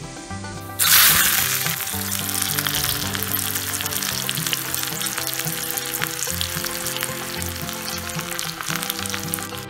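Hot oil with mustard seeds for a tadka, with a dried red chilli frying in it. A sudden loud sizzle about a second in as it is tossed in, then steady frying sizzle. Background music plays underneath.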